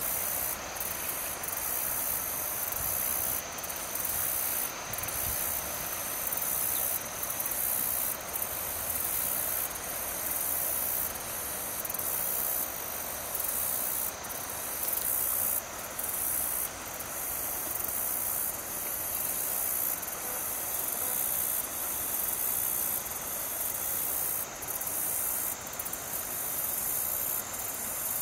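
Insect chorus: a high, steady hissing trill with brief breaks about every second, over a soft steady rush.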